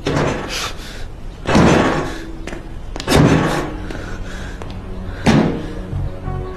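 A person banging on a locked door: three heavy bangs about a second and a half to two seconds apart.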